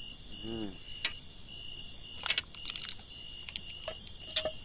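Insects chirping in a steady, high, pulsing chorus, with several sharp clicks and knocks of things being handled scattered through it.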